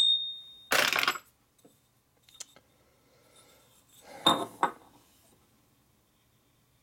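Metal-on-metal handling of a used Harley Knucklehead piston and its wrist pin: a ringing clink, a short scrape as the pin slides in the piston, then about four seconds in two sharp knocks as the piston is turned over and set on the steel workbench.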